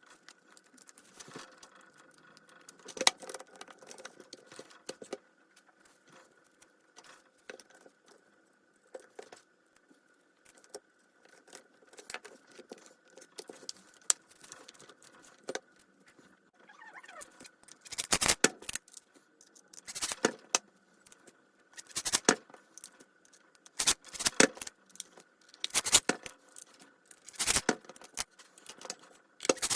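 Metal tool parts being handled, with small clicks and scrapes at first and then short, sharp metallic rattles and clinks about every two seconds.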